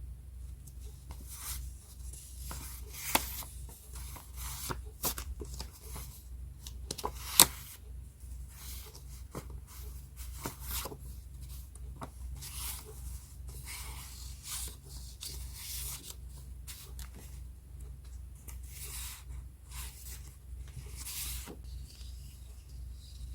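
Sheets of scrapbooking paper being handled: repeated rustling and sliding, with a sharp click about three seconds in and a louder one about seven seconds in. A steady low hum runs underneath.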